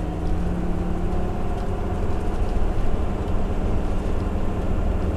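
Ford V10 Triton engine of a Class A motorhome pulling steadily up a grade, a constant low drone with road rumble, heard from inside the cab.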